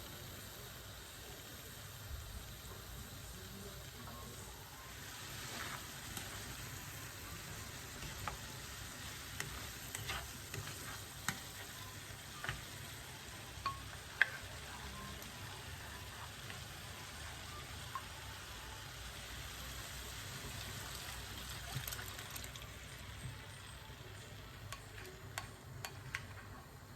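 Vegetables frying in oil in a pot with a soft, steady sizzle, and a spoon clicking against the pot now and then as they are stirred.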